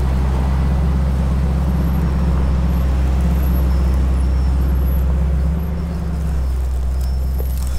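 Recovery truck's engine running steadily under load as it pulls a minivan out of loose gravel on a tow line, a steady low hum whose note drops slightly about five and a half seconds in.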